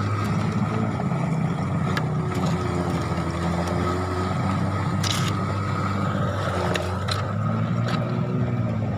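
Small boat engine running steadily at a constant speed with a low hum, with a few sharp clicks or knocks over it.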